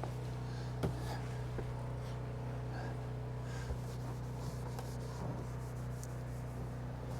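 A steady low hum, with a few faint clicks and rubbing sounds, one click about a second in.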